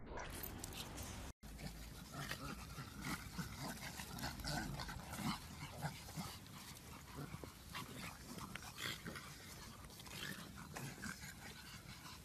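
A group of pugs making short, irregular dog noises as they move about together.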